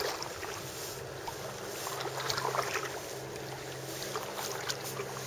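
Double-bladed kayak paddle strokes, the blades dipping and splashing in calm lake water at an unhurried, irregular rhythm.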